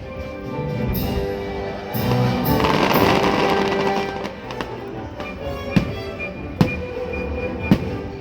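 Fireworks bursting over show music played from loudspeakers, with three sharp bangs in the second half and a louder swell of noise around the middle.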